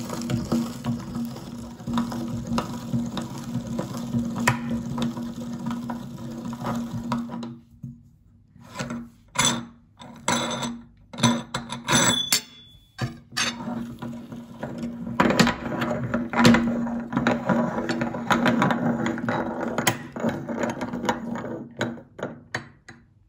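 Meat grinder running, squeezing plasticine out through its cutting plate with a steady hum and squelching. About seven seconds in it stops, leaving scattered metal clicks and knocks, then it runs again from about fifteen seconds in until shortly before the end.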